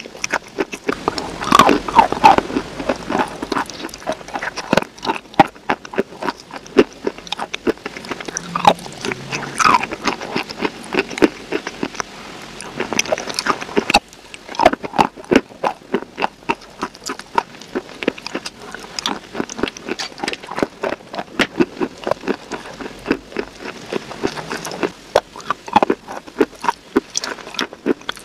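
Close-miked biting and chewing of a soft, creamy food: a dense run of smacking mouth clicks, with a few louder ones.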